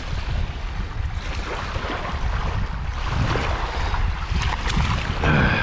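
Wind buffeting the microphone in an uneven rumble, over small waves washing onto a pebble shore.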